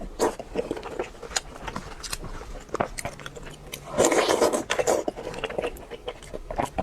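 Close-miked eating of crispy fried food: a loud crunchy bite about four seconds in, with chewing and many small crackles of the crust around it.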